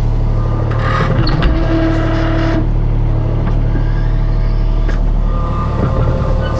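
Skid steer's engine running steadily with a deep hum, and a higher whine that comes in and drops away.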